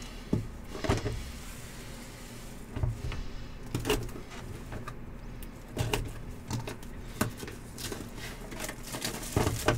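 Sealed hobby box of trading cards being opened by hand with a box cutter: scrapes and rustles of the wrap and cardboard, with scattered sharp clicks and taps as the box is handled.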